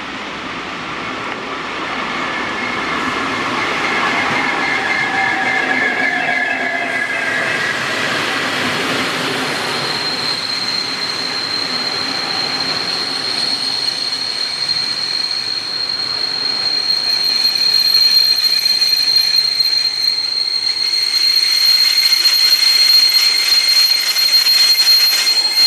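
A DB regional train rolling in and braking to a stop, its brakes squealing. At first there is rolling noise from the wheels, with tones falling in pitch as the train slows. From about ten seconds in, a steady high-pitched squeal takes over and grows louder toward the end.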